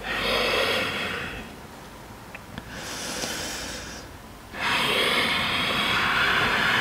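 A woman breathing slowly and deeply, with a breath near the start, a shorter one about three seconds in, and a longer one from about four and a half seconds on.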